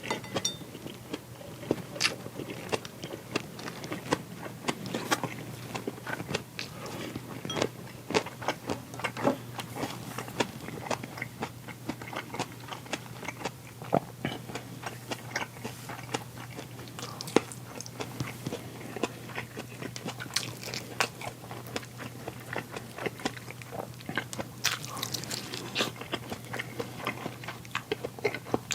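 Close-miked eating: a person chewing and biting food, with many short crunches, clicks and smacks coming irregularly throughout, over a steady low hum.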